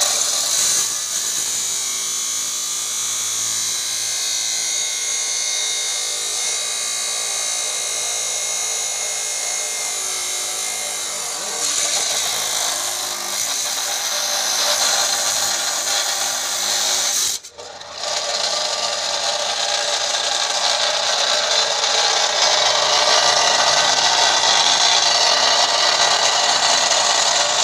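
A handheld power tool with an abrasive disc runs steadily against steel with a harsh, high-pitched grinding hiss. It stops for a moment about two-thirds of the way through, then starts again louder.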